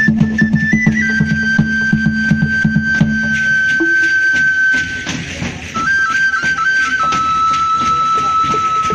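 Prehispanic-style dance music: a cane flute holds long, steady high notes, stepping between a few pitches, over fast huehuetl drumming. The drumming thins out about four seconds in.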